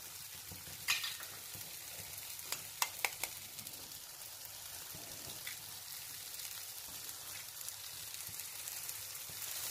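Tomato-onion egg masala sizzling steadily in a non-stick frying pan, with a few sharp clicks about one and three seconds in as a raw egg is cracked and dropped into it.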